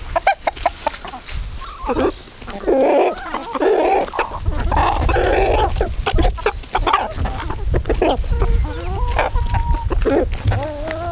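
A flock of backyard chickens clucking as they crowd together and peck at heads of lettuce, the calling loudest through the middle.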